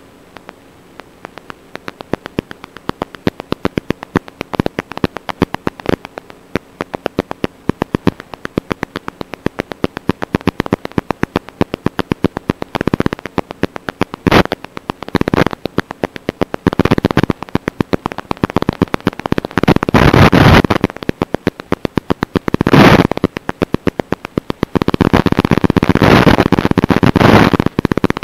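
Crackling static from an analog FPV video receiver: sharp clicks that come thicker and louder as it goes on, with several loud bursts of hiss in the second half, the sign of the drone's video link breaking up.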